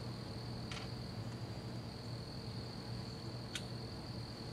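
Crickets trilling steadily in an evening insect chorus, with a couple of faint clicks about a second in and again near the end.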